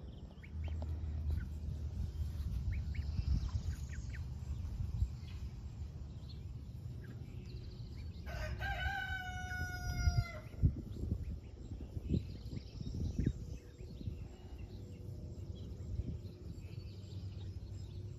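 A rooster crows once, a single drawn-out crow of about two seconds, falling slightly at the end, roughly eight and a half seconds in, over a low steady background rumble.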